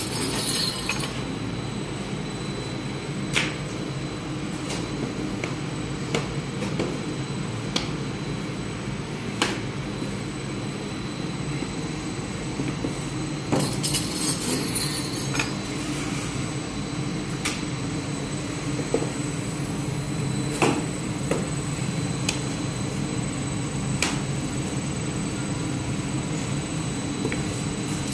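Steady machine hum and rumble of a bakery's round bread oven, with scattered sharp knocks and clinks as dough is worked with a wooden rolling pin and a spiked docking roller on the table.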